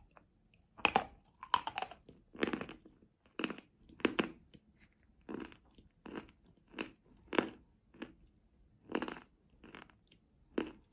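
A person chewing a mouthful of crunchy eating chalk mixed with paste, in steady crunchy chews a little more than one a second.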